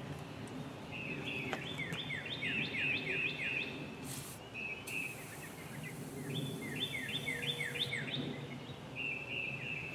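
A bird singing in the background: runs of fast repeated chirps with steady whistled notes between them. An aerosol can hisses briefly about four seconds in, then sprays oil steadily for about three seconds.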